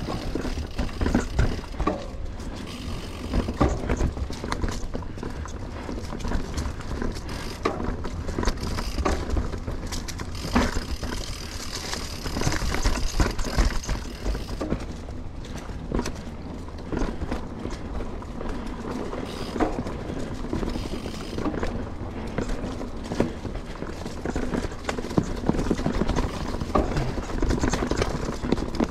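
Mountain bike rolling down a dirt trail: wind rumbling on the camera microphone, tyres on the dirt, and the bike rattling and clattering irregularly over bumps.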